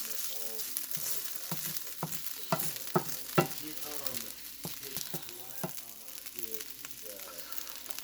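Garlic sizzling in a hot frying pan while a utensil stirs it, clicking and knocking against the pan; the loudest knocks come in a cluster around three seconds in.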